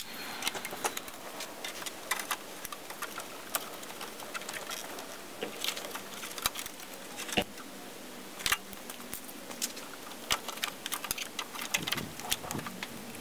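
Hand tools and metal parts clicking and clinking in a car's engine bay during engine installation work, in irregular light clicks with a couple of sharper knocks about seven and a half and eight and a half seconds in.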